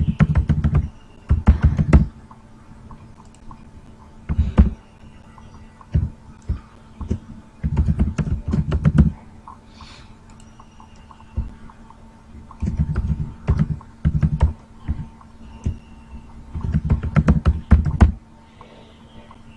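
Typing on a computer keyboard in several quick bursts of key clicks, with pauses between them.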